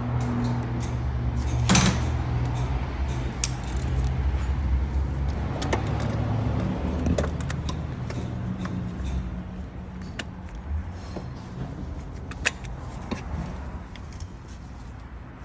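Scattered metallic clinks and knocks of hand tools on engine bolts, the sharpest about two seconds in, over a steady low hum that slowly fades.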